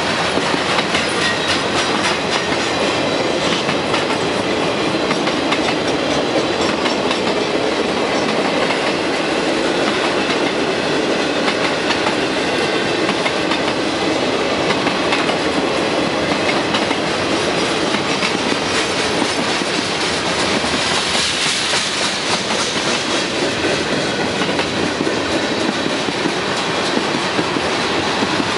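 Freight cars of a mixed freight train rolling past: a steady rumble of wheels on rail with a continuous clickety-clack. About three-quarters of the way through, a higher hiss swells for a few seconds.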